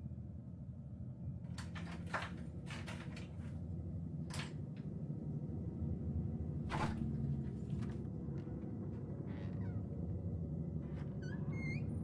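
A low, steady rumbling drone with scattered sharp clicks and knocks, and a quick run of short, rising, high squeaks near the end.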